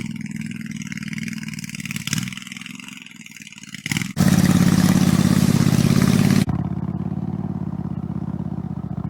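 Riding mower's 25-horsepower gasoline engine running steadily. About four seconds in it turns suddenly much louder with a rushing noise for about two seconds, then drops back to a steady run.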